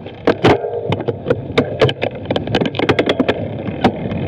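Mountain bike ridden over a rough forest trail: irregular sharp knocks and rattles from the bike and camera mount as the wheels hit bumps and roots, over a steady rush of tyre and wind noise.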